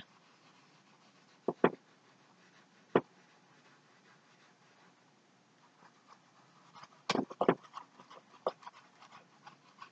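Paintbrush working paint on a stretched canvas: a few short taps and scrapes, a quick pair about a second and a half in, one more a little later, and a cluster of them around seven seconds, over faint room hiss.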